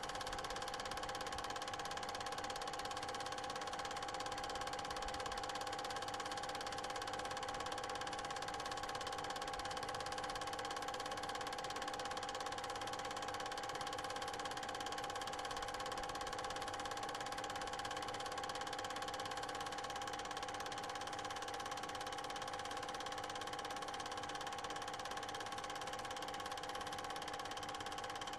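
Steady machine hum with several fixed pitches over a light hiss, unchanged through the picture cuts: running noise from the transfer of a silent 8mm cine film, not sound from the filmed scenes.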